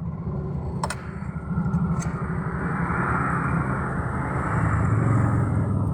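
A motorcycle engine running with a steady low, pulsing rumble. A rushing noise swells through the middle and eases off near the end. There is a sharp click about a second in.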